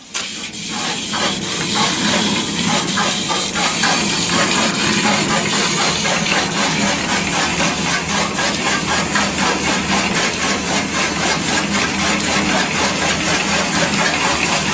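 A machine starts abruptly and runs steadily with a loud hiss and a rapid, even beat.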